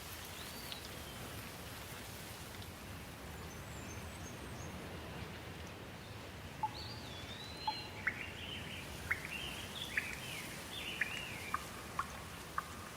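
Birds calling in a forest: whistled chirps and short sharp notes, a few early on and then frequent from about halfway. A steady hiss runs under them.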